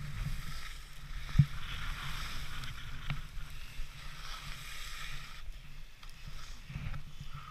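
Skis sliding and carving on packed snow, a steady hiss that drops away about five and a half seconds in, over low wind rumble on the microphone, with a thump about a second and a half in and another about three seconds in.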